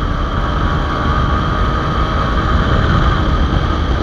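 Motorcycle engine under hard acceleration in third gear at speed, with heavy wind rush over the microphone.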